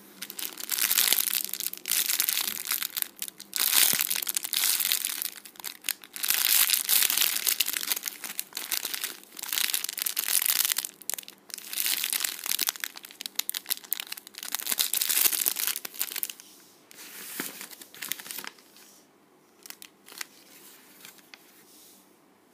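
Clear plastic bag crinkling as a bread-bun squishy toy is squeezed through it, in repeated bursts of a second or two each, dying away to a few faint crinkles over the last few seconds.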